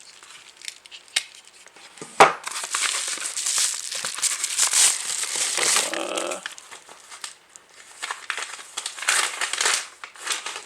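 Bubble wrap and plastic packaging crinkling and rustling in hands as a lighter is unwrapped, in irregular bursts, with one sharp click about two seconds in.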